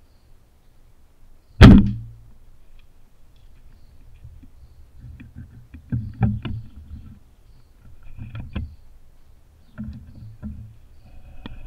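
Elite Hunter compound bow shot, heard through a camera mounted on the bow: one sharp, loud crack about a second and a half in. It is followed by scattered clicks and rustling as the bow is handled.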